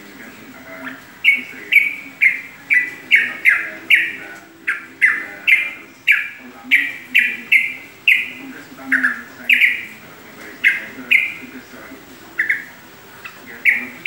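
Yellow-vented bulbul (trucukan) calling in a cage: a long run of short, loud, falling chirps, about two a second, with a few short pauses.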